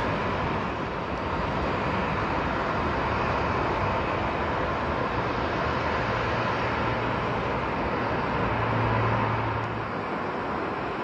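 Jet engines of taxiing airliners at low thrust, heard across the airfield: a steady rush of engine noise with a low hum that grows stronger toward the end.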